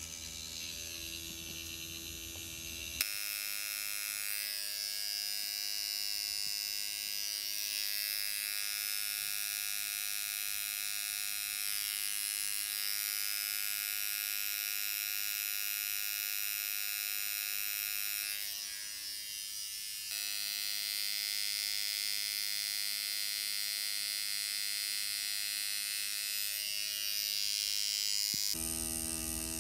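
Tattoo machine running with a steady electric hum as the needle works ink into skin. The hum starts abruptly about three seconds in and drops briefly about two-thirds of the way through.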